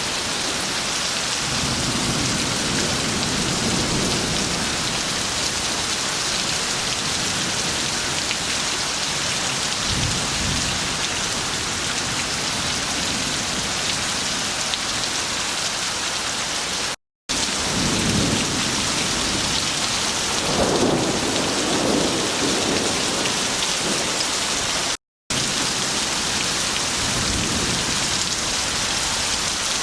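Heavy rain pouring steadily, with low rolls of thunder rumbling several times. The sound drops out for a split second twice, past the middle.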